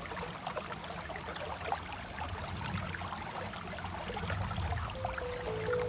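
Wood fire crackling with small, irregular pops over a low steady rumble. A few piano notes come in near the end.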